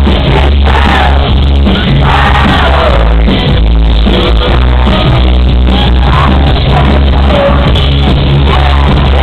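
Live electro-pop band performing a song very loudly, with a heavy steady bass, a singer's voice and crowd shouts mixed in.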